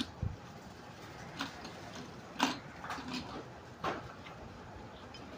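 Several separate sharp plastic clicks and knocks as a motorcycle's plastic headlight housing is handled and an H4 LED bulb is fitted into it.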